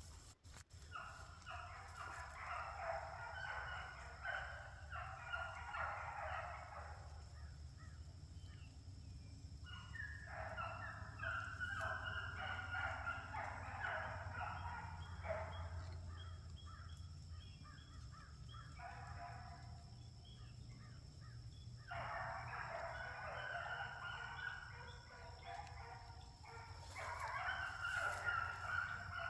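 A small pack of beagles baying in chorus while running a rabbit, distant and fairly faint: stretches of overlapping hound voices several seconds long, broken by short lulls. The pack is giving tongue on the rabbit's track as they drive it back around.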